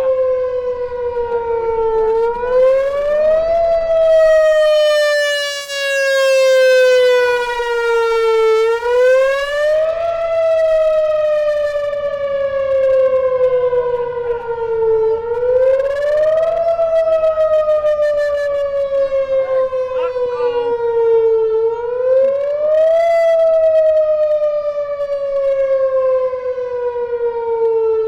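Outdoor warning siren sounding during a test: a loud tone that rises quickly and then slides slowly back down, repeating about every six and a half seconds.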